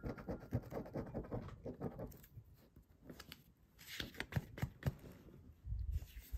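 A coin scratching the latex coating off a paper Banco scratch card: a quick run of rapid scraping strokes, then slower, scattered scrapes and taps. A dull thump near the end.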